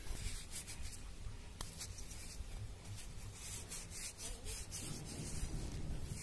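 A paper towel rubbing along a wooden saw handle: a soft swishing in quick, uneven back-and-forth strokes.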